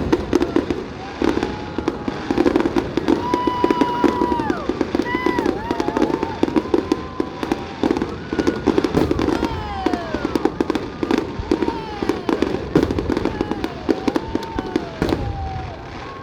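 Fireworks display with continuous rapid crackling and popping, and many whistles gliding down in pitch over it.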